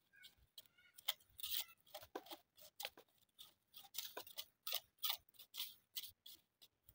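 Knife peeling a large, freshly dug yam: the blade cuts and scrapes off the thick skin in quick, irregular short strokes.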